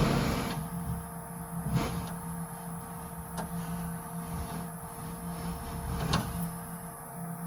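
Scattered metal clicks and taps, about three over several seconds, as short shifter parts and a retaining clip are handled and fitted, over a steady low hum.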